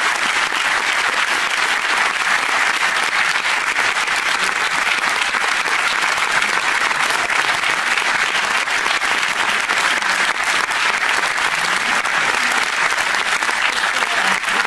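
A concert audience applauding: dense, steady clapping that holds at one level throughout.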